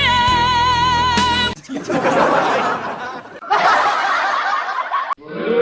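A sung note held with a regular vibrato through a live-streaming sound card's effects, over steady low backing tones, cut off about one and a half seconds in. Two stretches of laughter-like noise follow, and another pitched voice-like sound starts near the end.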